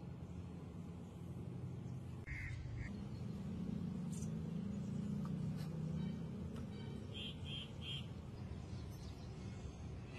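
A bird calling faintly in short bursts, twice about two seconds in and three times in quick succession near seven seconds, over a low steady rumble.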